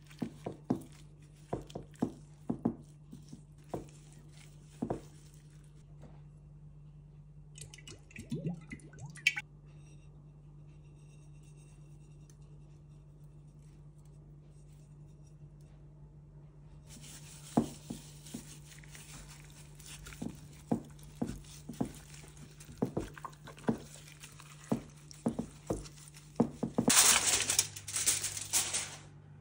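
Wet squishing and slapping of a gloved hand rubbing ginger-garlic paste over raw duck skin in a glass baking dish. Later comes the patter and rustle of a dry spice rub being sprinkled on, loudest in a burst near the end.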